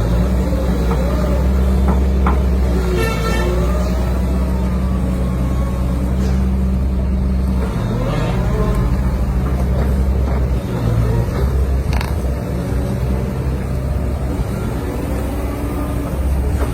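Heavy diesel engine of a construction machine running steadily, its engine speed shifting down about eight seconds in and changing again near eleven seconds. A short high tone sounds about three seconds in.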